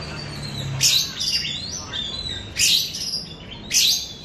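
Oriental magpie-robin (kacer) singing: three loud, sharp, high whistled calls about a second apart, with softer warbling notes between them. It is a young bird still learning its song.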